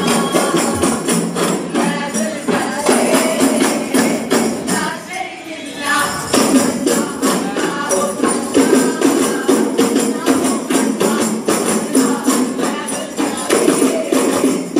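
A group of arabana frame drums beaten together in a fast, steady rhythm, with the players singing along, as in Arabanamuttu. The drumming eases briefly about five seconds in, then picks up again.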